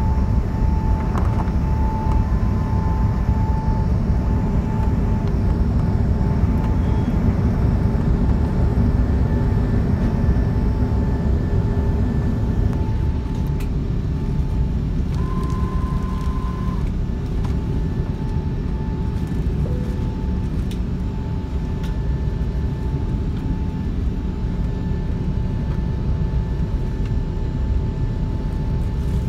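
Airbus A380 engines at takeoff power, heard inside the upper-deck cabin as a steady, heavy rumble with a thin steady tone over it, through the takeoff run and liftoff.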